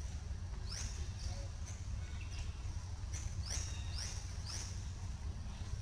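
High-pitched animal chirps, short and sweeping downward, repeated at irregular intervals over a steady low rumble.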